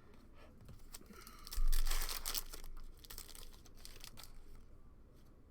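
Plastic card pack wrapper crinkling and tearing, loudest about a second and a half in, where it starts with a low thump, then dying down to light crackles.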